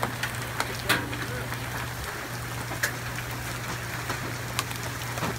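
Hail storm: a steady hiss of falling hail, with sharp cracks of single ice-cube-sized hailstones striking hard surfaces every second or two.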